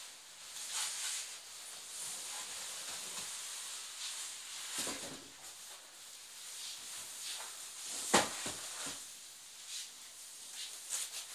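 Packaging rustling and scraping as a television in a soft protective wrap is slid up out of its cardboard box, with a sharp knock about eight seconds in.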